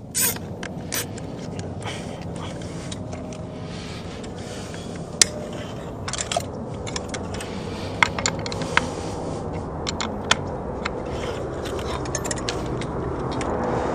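Handling noise from work on cable and hardware: a sharp click just as it begins, then scattered clicks and scrapes over a steady background rush that slowly grows louder.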